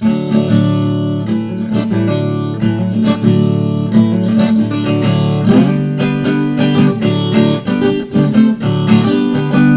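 Instrumental opening of a moda de viola: viola caipira plucked and strummed over a steady low bass line, starting suddenly out of silence.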